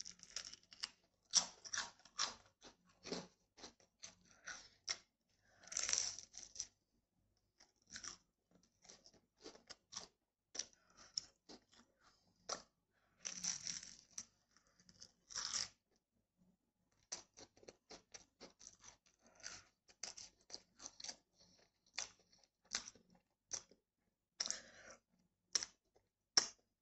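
Close-up eating: bites into crispbread topped with microwave-melted cheese, then crunching and chewing, many short crunches with a few louder bites along the way.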